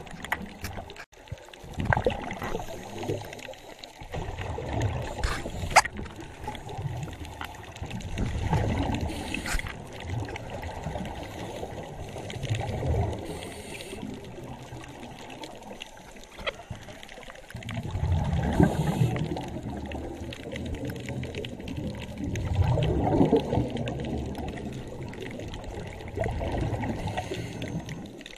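Underwater bubbling from divers' scuba regulators: exhaled air gurgling out in a burst every few seconds, with quieter stretches between breaths.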